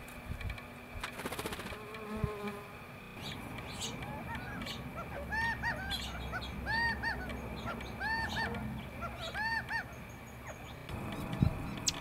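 Gila woodpecker calling: a series of short rising-and-falling notes, often in quick pairs, repeated about once a second from about five seconds in until about ten seconds in.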